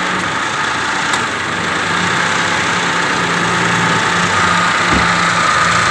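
Toyota Passo engine idling with the AC compressor switched on, with a steady whine from the drive belt and compressor that grows a little louder in the second half; the belt and compressor are noisy.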